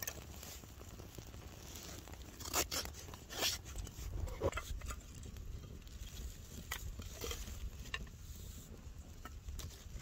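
Small fire of dry leaves and split pine 2x4 kindling crackling, with a few sharp pops around the middle. Later come lighter clicks as sticks of kindling are laid on the flames.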